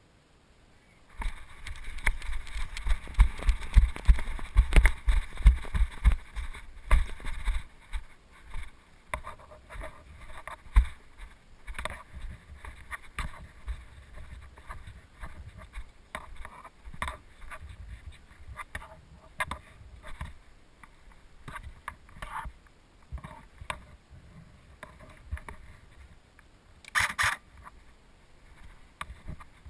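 Footsteps and rustling of a person moving quickly, with low thumps from the body-worn camera jostling. They are fastest and loudest for the first several seconds, then softer and irregular, with a short louder rush of noise near the end.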